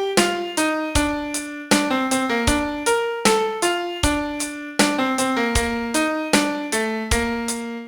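Solo piano playing a song melody note by note over lower chord notes, each key struck and left to ring and fade, with a new note about every half second.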